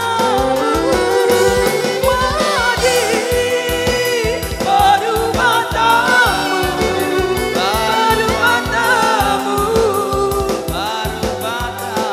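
A song with a singer's wavering voice over instrumental accompaniment and a steady beat.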